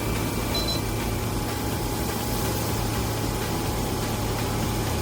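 An engine running steadily at a constant speed, a low even hum with noise over it. A brief high beep sounds about half a second in.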